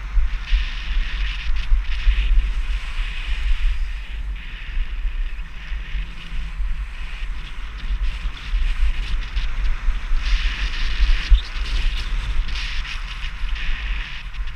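Wind buffeting the microphone of a body-worn GoPro during a fast run down a ski slope: a steady low rumble. Over it, the hiss of sliding on packed snow swells in patches, strongest from about ten seconds in.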